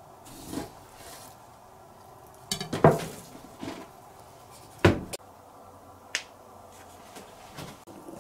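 Kitchen knife and porcelain bowl clattering while raw yellowtail is sliced for sashimi: a handful of separate sharp knocks and clinks, the loudest about three and five seconds in.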